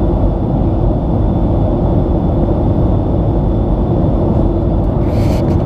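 Steady low roar of engine and airflow noise inside a Boeing 737 passenger cabin, with a faint steady high whine over it. A brief hiss comes near the end.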